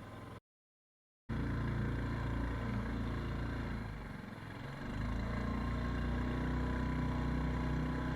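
A small fishing boat's engine running steadily at trolling speed, a low hum. The sound cuts out completely for about a second near the start, and the engine note eases briefly around the middle before steadying again.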